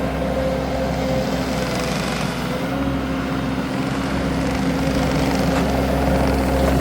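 Wacker SM120 mini skid steer's engine running at a steady speed.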